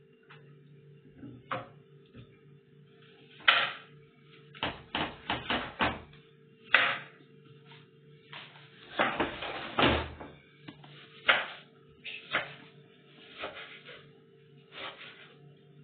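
Knife cutting a peeled onion over a wooden cutting board: irregular clicks and knocks of the blade and board, with a quick run of taps about five seconds in and a longer clatter near the middle.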